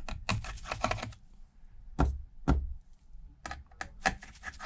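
Irregular small sharp clicks and taps from a precision screwdriver and tiny screws being taken out of a metal plate inside an iPad Pro and set down. There is a quick cluster of clicks at the start, single clicks around two seconds in, and another cluster near the end.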